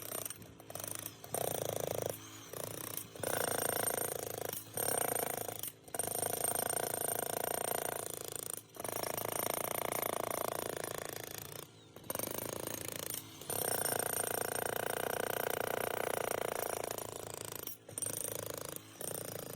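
Jackhammer breaking up old concrete, run in bursts of one to a few seconds with short pauses in between. Its steady, humming drone carries tones that the operator jokes sound like songs.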